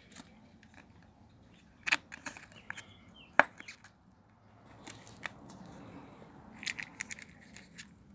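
Stiff paper cards handled and pushed in between a tyre's rubber and an alloy rim: scattered light clicks, taps and scrapes, the sharpest click about three and a half seconds in and a quick run of them near the end.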